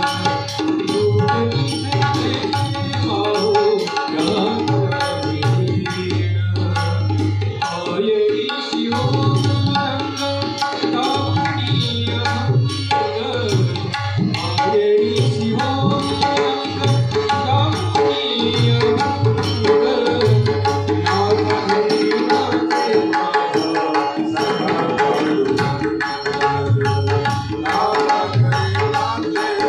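Tabla and mridang drumming a fast, dense rhythmic passage of Marathi devotional abhang music. Deep bass strokes pulse under sustained melodic accompaniment.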